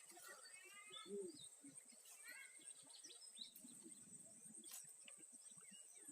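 Near silence: faint rural outdoor ambience with a few faint bird chirps and a steady faint high-pitched tone.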